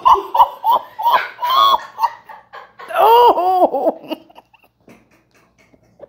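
A woman laughing in bursts, loudest about three seconds in, then dying away after about four seconds.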